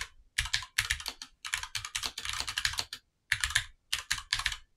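Typing on a computer keyboard: quick runs of key clicks, with a short pause about three seconds in.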